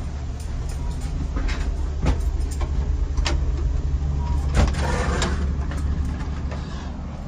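Steady low hum of a Caltrain gallery passenger car, with clicks and knocks as the end door between cars is handled and opened. The loudest knock comes about four and a half seconds in, followed by a brief louder rush of noise.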